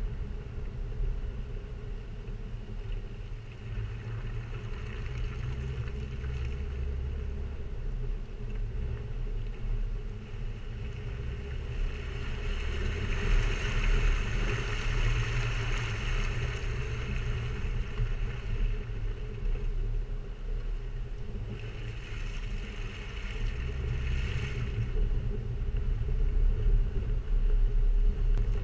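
Jeep Wrangler TJ's 4.0-litre straight-six running steadily as the Jeep drives along a dirt track, a low rumble of engine and tyres heard from a camera on the body. A hissing rush swells in the middle as the tyres cross wet mud, and again briefly later.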